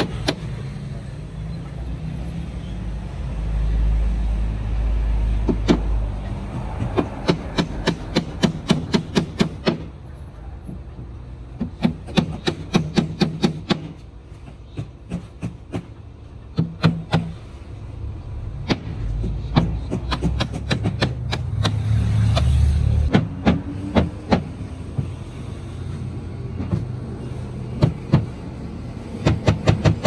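Hammer nailing a timber batten onto plywood formwork panels, in quick runs of sharp strikes several a second with pauses between runs. A low rumble swells twice, a few seconds in and again past the twenty-second mark.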